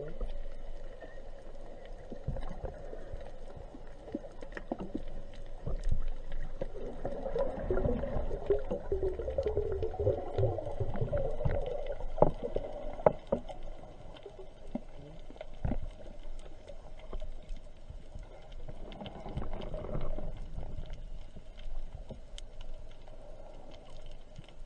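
Underwater sound: a low rumble of moving water with scattered sharp clicks and crackles, and a wavering gurgle from about seven to thirteen seconds in and again briefly near twenty.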